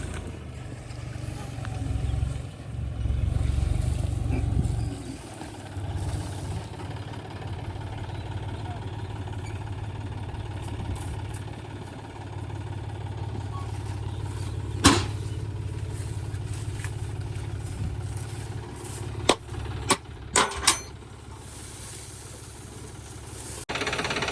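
Heavy diesel engine of a backhoe loader working, a steady low hum that is louder for the first few seconds. Short sharp knocks come once about two-thirds of the way through, then several close together soon after.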